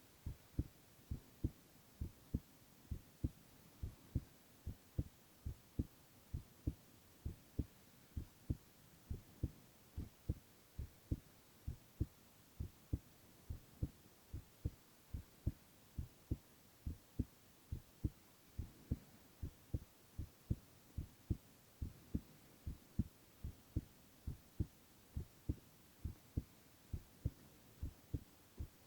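A man's heartbeat, a steady, even rhythm of paired thumps (lub-dub) all the way through.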